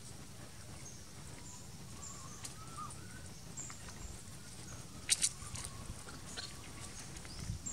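Faint outdoor ambience with short high-pitched chirps repeating about once a second, a faint wavering whistle two to three seconds in, and a sharp click about five seconds in.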